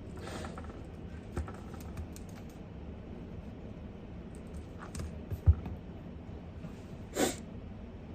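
Desk sounds while studying: scattered light clicks and taps, one sharper thump midway and a brief scrape near the end, over a steady background hiss.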